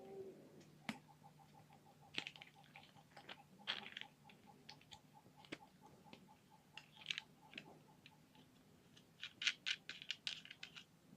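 Faint scattered clicks and short rustles of a plastic car phone holder being handled and fitted, with a quick flurry of clicks about nine to ten seconds in.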